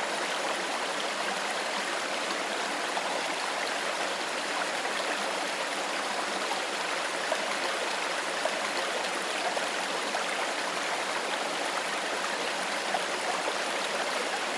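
Small stream running steadily over stones, an even rush of water with small bubbling splashes.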